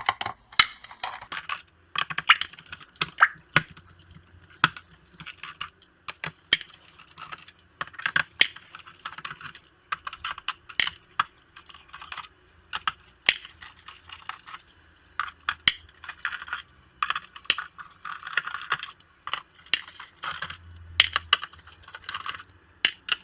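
Irregular small clicks, taps and light metallic clinks of hand tools on a laptop's plastic bottom cover as its small screws are taken out and set down.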